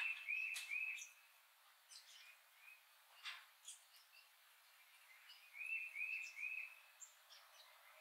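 Wild songbirds singing: one bird gives a phrase of three clear, slurred whistled notes at the start and repeats it about five seconds later, with short high chips from other birds between.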